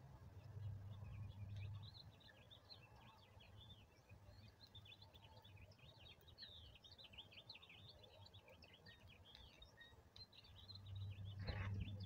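Faint chatter of many small birds chirping, with short high chirps coming several a second. A low rumble comes and goes, and a brief thump near the end is the loudest sound.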